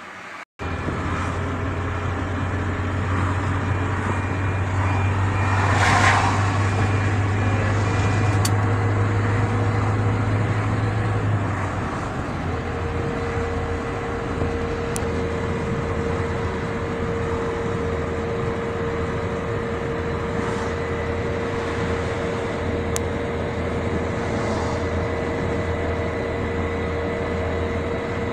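Car driving, heard from inside the cabin: a steady drone of engine and road noise. There is a louder swell of noise about six seconds in, and the engine hum changes pitch about twelve seconds in.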